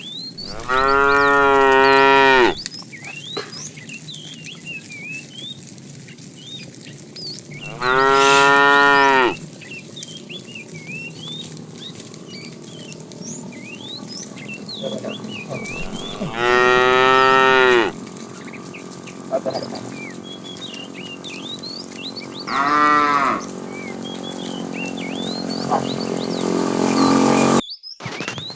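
Cattle mooing: four long, loud moos spaced several seconds apart, the last one shorter than the others.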